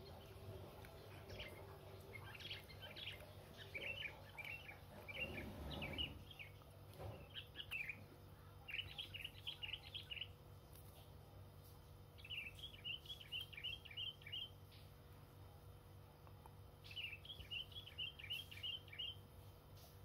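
Sooty-headed bulbul (kutilang) chirping in quick runs of short high notes, four or five runs in all, the later ones tight series of six or seven notes.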